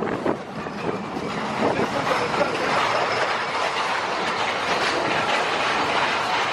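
Big Thunder Mountain mine-train roller coaster running along its steel track, heard from on board: a steady, loud rattle and rumble of the cars and wheels on the rails.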